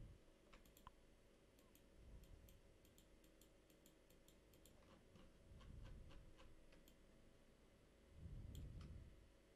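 Near silence with faint computer mouse clicks scattered throughout, and three soft low sounds at about two, six and eight and a half seconds in.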